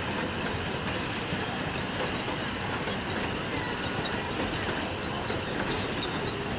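Puffing Billy's narrow-gauge open passenger carriages rolling slowly past: a steady rattling clatter of wheels and running gear on the rails.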